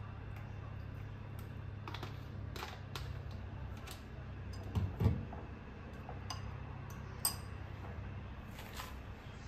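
Plastic supplement bottles and tubs handled and set down on a kitchen countertop: scattered light clicks and taps, with a heavier knock about five seconds in, over a steady low hum.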